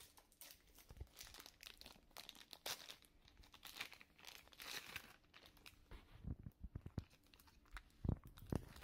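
Thin plastic packaging bags crinkling and rustling as they are handled. A few dull low thumps come in the last few seconds.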